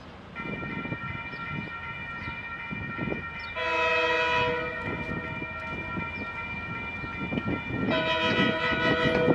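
Horn of an approaching DL class diesel locomotive: a steady chord that swells into two louder blasts, about three and a half and eight seconds in.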